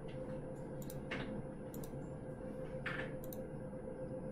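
About six light, scattered clicks from a computer mouse and keyboard, over a steady low hum.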